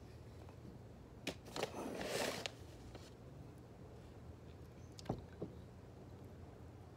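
Hands and a small potted pond plant moving in shallow water: two light knocks, then a short splash and trickle of water lasting under a second, and two more soft knocks about five seconds in.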